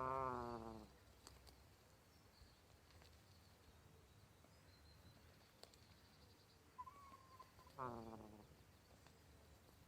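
A sleeping gosling snoring: twice, about eight seconds apart, a pitched, wavering breath under a second long that falls in pitch, the second one preceded by a short thin tone.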